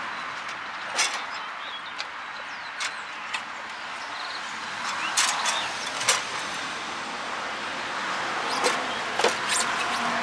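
Aluminum aftermarket dash frame being handled and fitted into a truck cab: about ten short, sharp metal clicks and knocks, spread unevenly, over a steady background hiss.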